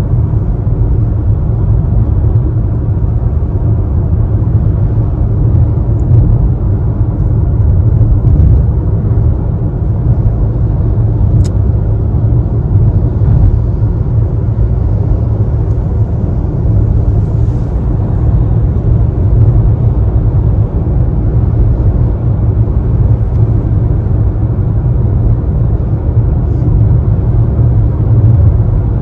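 Car cabin noise while driving on a rain-soaked motorway: a steady low rumble of tyres on the wet road, engine and wind.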